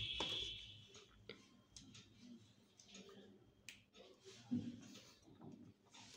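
Faint scattered clicks and light knocks of tools and parts being handled on a workbench, opening with a short metallic ring that fades out within about a second.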